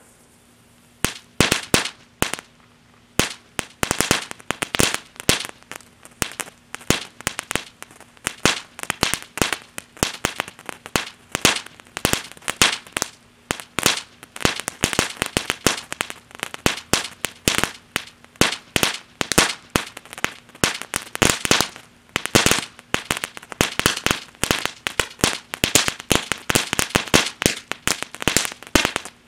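Imperial Dragon Crackling Dragon crackle fountain burning: a soft hiss of sparks, then from about a second in dense, irregular volleys of sharp crackling pops, many a second and coming in clusters.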